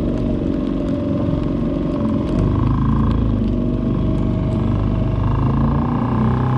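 Small boat's outboard motor running under way, its note shifting slightly about two and a half seconds in and again near the end.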